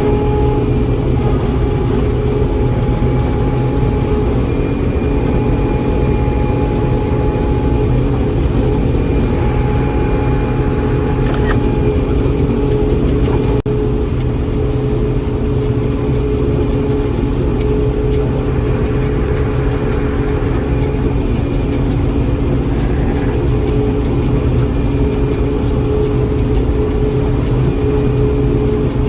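John Deere 4400 combine running steadily while harvesting corn: a continuous loud engine and machinery drone with several steady whining tones over it.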